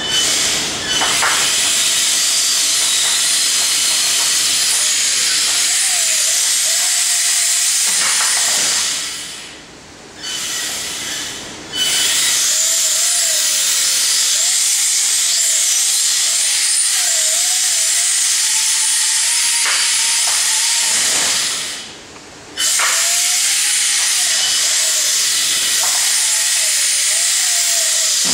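Combat-robot drivetrain running: brushless motors driving through Banebots P60 planetary gearboxes and chain reduction, a loud hiss with a whine that wavers up and down in pitch with the throttle. It drops away twice, about a third of the way in and again about three-quarters in, as the drive is let off.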